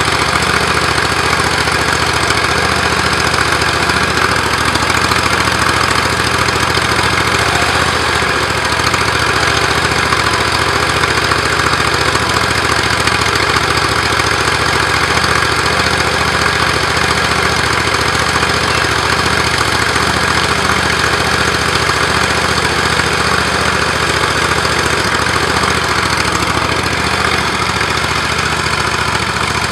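25-horsepower Briggs & Stratton engine on a single-axle tractor, running steadily at a constant speed while it drives the machine's hydraulic pump.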